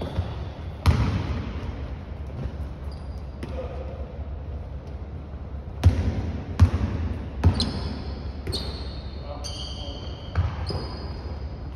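Basketball bouncing on a hardwood gym floor, a handful of separate echoing thuds, with short high squeaks from sneakers on the court in the second half.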